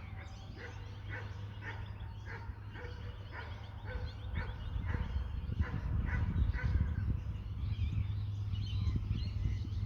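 An animal calling over and over, about twice a second, with a distant, bark-like sound. Wind rumbles on the microphone and grows stronger in the second half.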